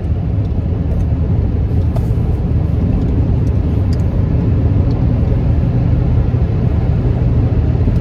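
Steady low road rumble inside a moving pickup truck's cab: engine and tyre noise while driving on the highway.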